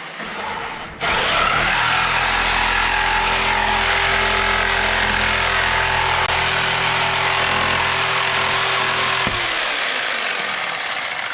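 A power tool starts about a second in and runs steadily for about eight seconds, a motor hum under a loud cutting noise, then stops abruptly.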